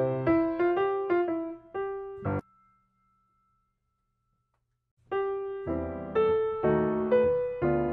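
Background piano music, a melody of separate struck notes. It cuts off about two and a half seconds in, and after nearly three seconds of silence it starts again.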